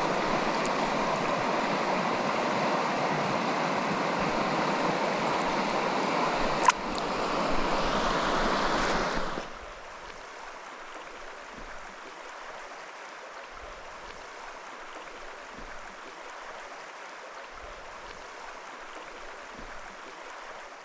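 Stream water rushing, a steady hiss, with one sharp click about seven seconds in. About nine and a half seconds in it drops suddenly to a much quieter, thinner rushing.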